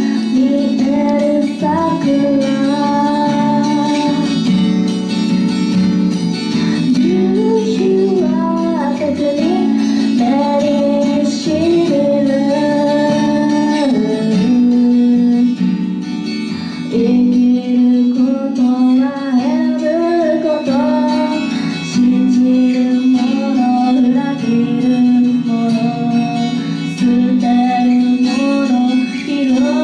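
A woman singing a slow melody while accompanying herself on an acoustic guitar, live and unamplified-sounding through a small PA.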